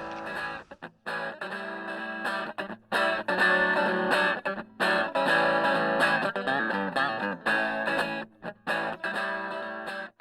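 Background music: electric guitar with distortion, played in short phrases with abrupt breaks.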